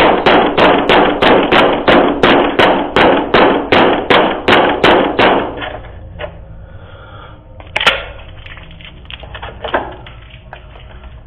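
A man pounding on a front door with fast, even blows, about three a second, which stop about halfway through, followed by two single harder bangs on the door, heard through a doorbell camera's microphone.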